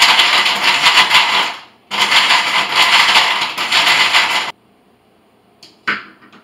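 Countertop blender running at full speed, pausing for a moment just under two seconds in, then running again until it cuts off suddenly about four and a half seconds in. A couple of short knocks follow near the end.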